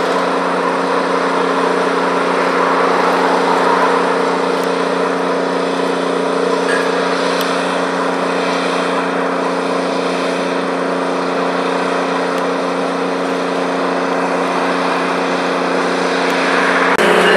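Canadian Pacific F-unit diesel locomotive 1401 and its train running as they approach slowly. The diesel engines give a steady, unchanging hum over a haze of running noise.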